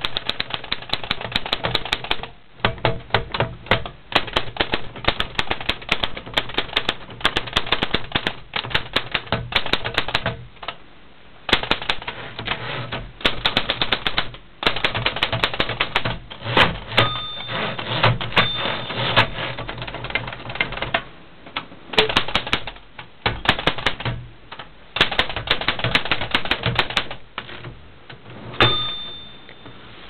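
A 1923 Remington No. 12 manual typewriter being typed on: fast runs of typebar clacks against the platen with short pauses between runs. A brief ringing tone sounds a few times, the last near the end.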